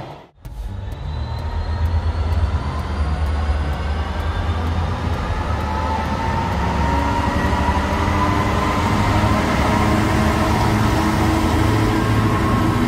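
Freightliner Class 66 diesel-electric locomotive, with its two-stroke V12 engine, approaching and passing close by under load while hauling a container train: a loud, deep engine rumble with steady tones that rise slowly and grow stronger as it nears. The sound starts after a brief gap a moment in.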